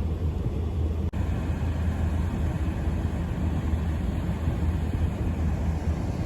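Steady low engine rumble of a large vehicle idling or moving slowly, with a brief dropout about a second in.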